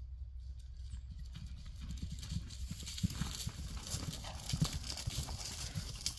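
A horse's hooves pounding on grass pasture as it canters past, starting about a second in and growing louder as it comes close, with rustling over the thuds.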